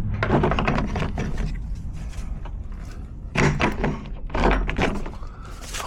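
Irregular knocks and thumps with rustling, the loudest ones about three and a half and four and a half seconds in.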